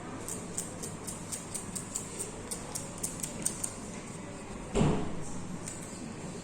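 A run of light, sharp clicks, about three a second, over a steady background hum, then a single dull thump about five seconds in.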